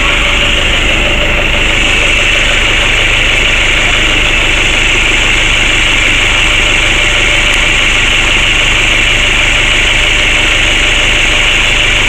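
Parked passenger minibus's engine idling steadily with an even low throb.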